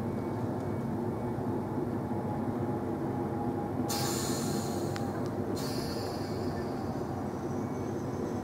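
TfL Rail Class 315 electric multiple unit at the platform with a steady hum and rumble from its equipment. About four seconds in, a sharp hiss of air lasts under two seconds, with a single click in the middle.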